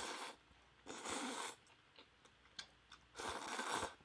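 Noodles and broth of spicy seafood instant noodles slurped from a bowl held to the mouth: three long slurps, one ending just after the start, one about a second in, the last near the end. A few faint clicks fall between them.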